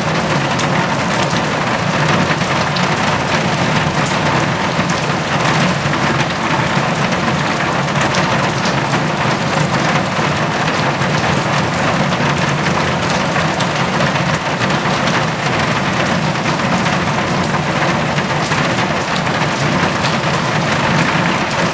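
Heavy rain drumming steadily on a metal roof, a dense even patter of countless drops.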